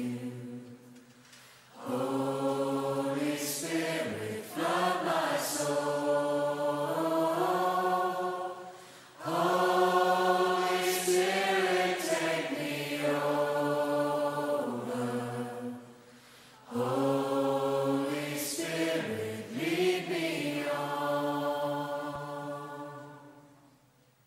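Closing phrases of a worship song: voices singing three long phrases of slow, held notes over a sustained backing, fading out near the end.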